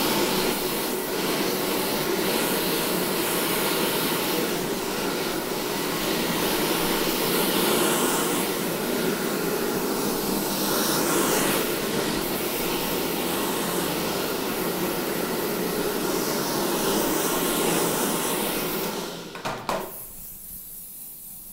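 A steady, unbroken rushing hiss of air from hair styling for about twenty seconds, stopping shortly before the end.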